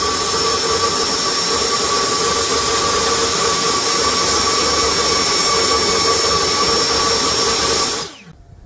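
Table saw running at full speed with a steady high whine while a thin wooden strip is crosscut against the miter gauge. The sound cuts off suddenly near the end.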